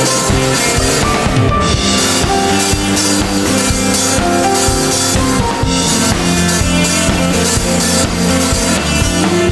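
Live pop-rock band playing: drum kit, electric bass, guitar and keyboard together at a steady loud level.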